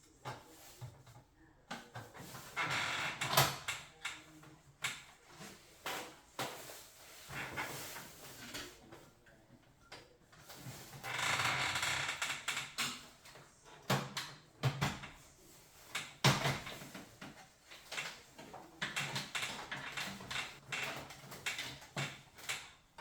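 Hands working on a boiler's casing and control panel: irregular clicks, knocks and scraping of plastic and metal parts, with two longer rubbing or sliding sounds about two to three seconds in and again about eleven seconds in.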